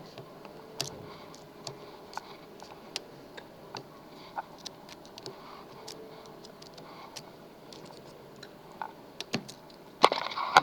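Lock picking: irregular light clicks and ticks of a pick working the pins of a pin-tumbler lock held under a flat tension wrench.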